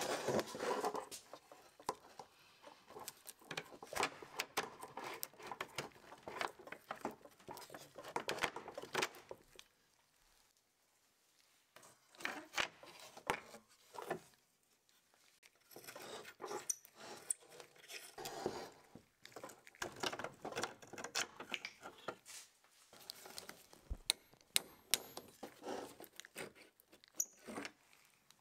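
Small clicks, taps and rattles of the wooden legs and metal fittings of a Berlebach wooden tripod being handled and taken apart, irregular throughout, with a quiet pause about ten seconds in.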